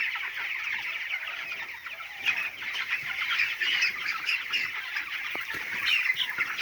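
A large flock of young poultry chicks cheeping, with many short calls overlapping in a continuous chorus.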